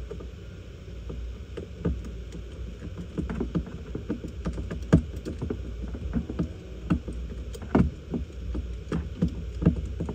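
Irregular knocks, clicks and rattles of parts and tools being handled, with several louder knocks around the middle, over a steady low rumble.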